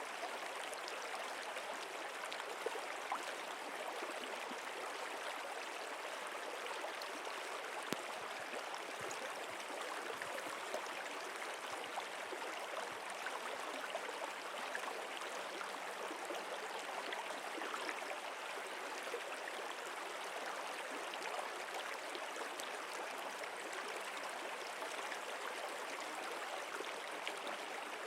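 Steady flowing water of a stream, an even wash of sound flecked with small splashes, unchanging throughout.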